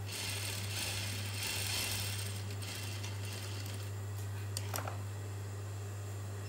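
Juki industrial single-needle sewing machine stitching in a short run over the first couple of seconds, over a steady electric hum. A few sharp clicks come about four and a half seconds in.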